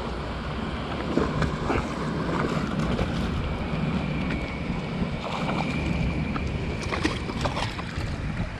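Wind rumbling on the microphone outdoors, with scattered light clicks and knocks while a hooked bass is reeled in and landed.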